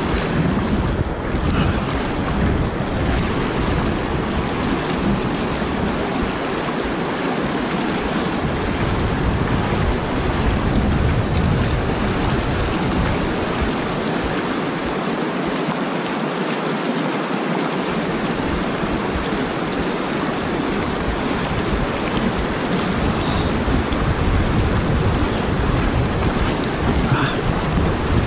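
Steady rush of water pouring over a concrete spillway, with wind buffeting the microphone as a low rumble that drops away twice for a few seconds.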